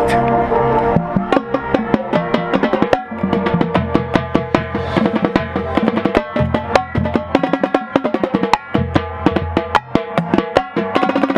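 Marching band playing its halftime show: held wind notes give way about a second in to a percussion-heavy passage of rapid drum strokes over sustained low notes.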